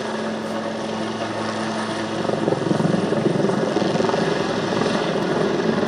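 Leonardo Wildcat HMA.2 helicopters in flight, their turboshaft engines and rotors running. A steady hum gives way about two seconds in to louder rotor noise.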